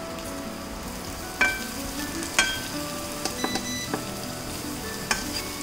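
Chopped onions and spices frying in oil in a stainless steel pan, with a steady sizzle, while a metal slotted spatula stirs through them and clinks sharply against the pan about six times.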